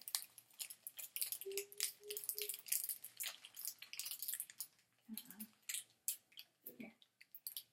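Crinkling and crackling of a plastic toy blind bag being worked and torn open by hand, in a run of quick irregular crackles.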